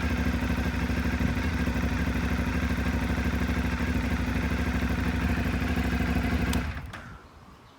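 Aprilia Dorsoduro 750's V-twin engine running steadily, then cutting off near the end and dying away.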